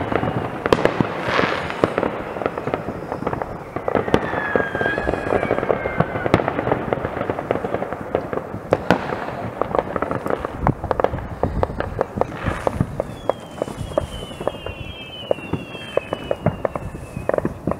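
Many fireworks going off across a town: a continuous run of distant bangs and crackles, with several high whistles falling in pitch around four to six seconds in and again in the last few seconds.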